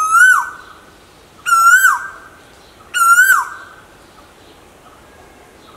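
Asian koel calling: three loud whistled notes about a second and a half apart, each rising slightly and then dropping sharply in pitch.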